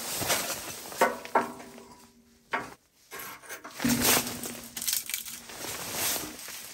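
Split kindling being stacked into a steel wood stove's firebox: two sharp wooden knocks against the metal about a second in, each leaving a brief ring from the stove. In the second half comes a longer rustling, crinkling sound of something being handled.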